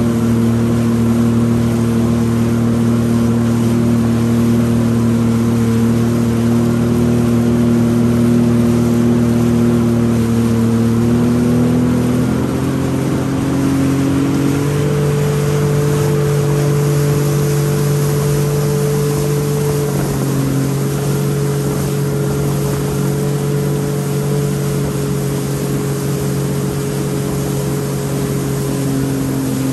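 Jet ski engine running at cruising speed: a steady drone whose pitch steps up about twelve seconds in and shifts a few more times after, over a constant rushing noise.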